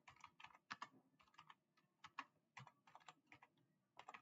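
Computer keyboard typing, faint: a run of quick, irregularly spaced keystrokes as a short phrase is typed.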